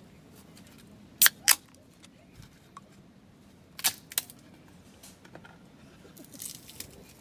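Two pairs of sharp clicks, each pair about a quarter second apart, about a second in and again near the middle, then a soft rustle near the end.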